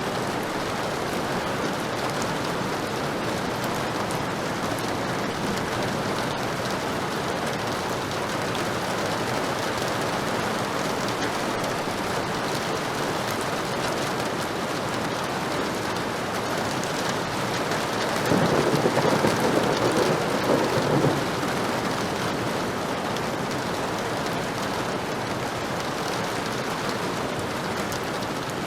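Heavy rain falling steadily. About eighteen seconds in, a roll of thunder rises over it for about three seconds.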